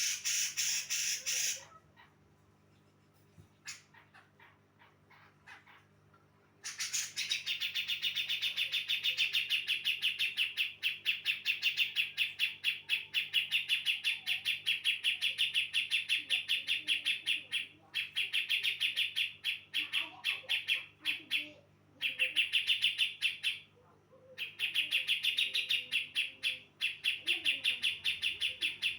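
Female Javan cucak jenggot (brown-cheeked bulbul) calling. A short burst at the start, then after a few quiet seconds a long, fast chattering trill, high-pitched and rapidly pulsed. It runs in long bouts with a few brief breaks, over a faint steady hum.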